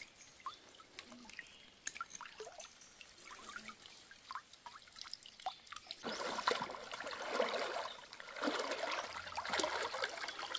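Water dripping and trickling off a mesh umbrella fish trap just lifted out of a shallow stream. From about six seconds in, rubber boots wade through the water with a splash at each step.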